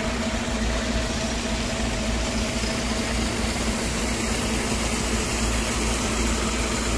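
Tractor diesel engine running steadily under load, driving a PTO-mounted 6x6 water pump, with the even rushing hiss of the pump's water discharge.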